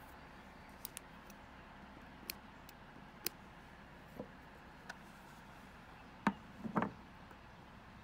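Faint ticks and taps from hand embroidery on fabric stretched in a plastic hoop as the needle is pushed and the thread pulled through, with a couple of louder knocks about six seconds in.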